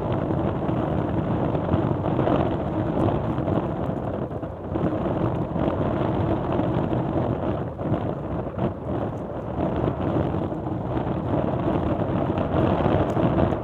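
Wind blowing across the microphone on an open mudflat shore: a steady rushing noise that swells and dips a little, with no distinct separate sounds.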